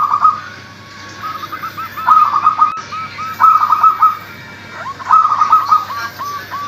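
Zebra dove (local perkutut) singing its cooing song: about four loud phrases of rapid, staccato coos, each trailing off into a run of softer, evenly spaced notes.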